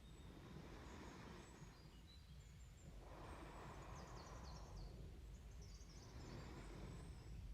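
Slow, quiet breathing close to the microphone, each breath swelling and fading every three to four seconds. Faint bird chirps sound behind it.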